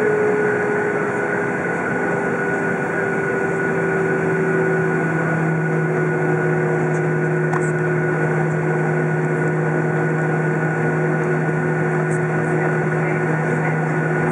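Cabin noise of a Boeing 737 taxiing, with its CFM56 turbofan engines running at low thrust: a steady rush with a whine whose pitch sinks slightly in the first few seconds, and a deeper hum that comes in about four seconds in.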